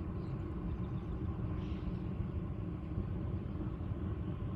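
Steady low outdoor rumble, a noisy drone with no clear pitch.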